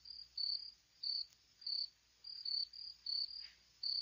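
Cricket-chirping sound effect: short, high chirps repeating about twice a second. It is the stock 'awkward silence' gag.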